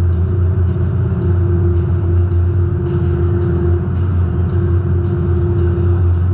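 A demolition derby car's engine running steadily, heard from inside the car, with a deep hum, a steady higher tone, and faint ticks about once or twice a second.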